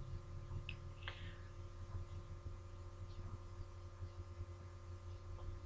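Steady low hum with faint background noise, and a faint click about a second in.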